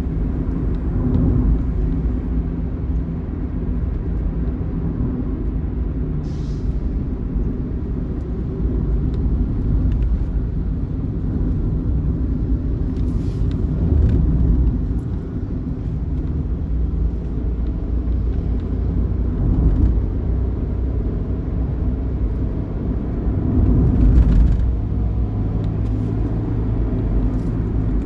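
Large diesel bus engine running steadily at road speed, with a low drone and road rumble. It swells louder for a moment about four seconds before the end.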